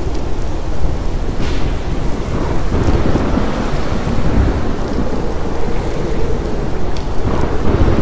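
Thunderstorm: rain falling steadily under a continuous low rumble of thunder, which swells a few seconds in.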